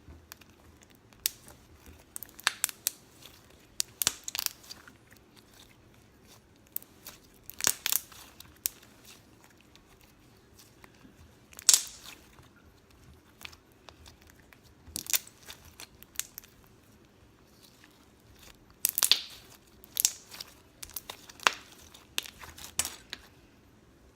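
Hands squeezing and pressing a pom-pom slime with a little glitter mixed in, giving irregular clusters of crackling, crunchy pops separated by quiet pauses.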